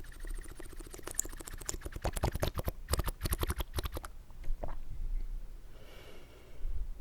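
Close-miked wet mouth sounds: a fast, dense run of slurps and wet clicks from sipped water for about four seconds, then a few softer, scattered mouth noises.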